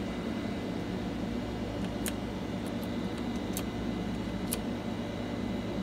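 Front-panel push-button switches on a Texas Star DX 667V CB amplifier clicking three times, over a steady low hum.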